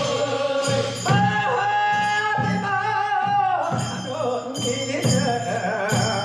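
Korean funeral bier song (sangyeo-hoedaji sori) sung live by a group of voices. About a second in, one voice holds a long wavering note for roughly two and a half seconds, over regular drum beats.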